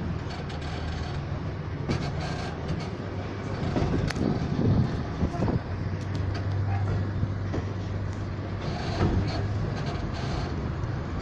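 Train running along the track, heard from on board: a steady rolling rumble with a low drone, louder for a moment about four seconds in and again near nine seconds.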